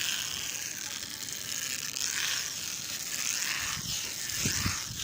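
A rope under tension creaking, with a few squeaky glides that bend up and down in pitch, over a steady hiss; a couple of low rumbles come near the end.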